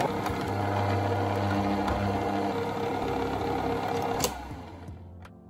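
Electric stand mixer motor running with a steady hum, then cutting off with a click about four seconds in.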